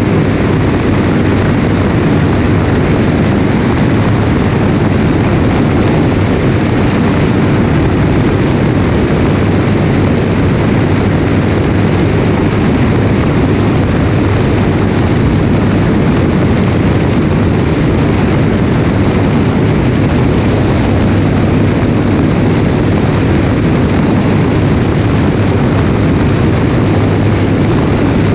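Light propeller aircraft in flight: its piston engine and propeller make a steady, loud drone, mixed with heavy wind rush over the wing-mounted camera. The sound holds at a constant level, with no change in power.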